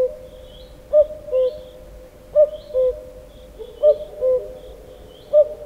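Common cuckoo calling its two-note "cu-coo", a higher note dropping to a lower one, repeated about every one and a half seconds. Faint high chirps sound behind it.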